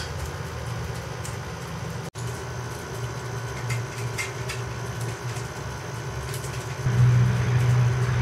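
A steady low machine hum that gets louder about seven seconds in, with a few faint light ticks.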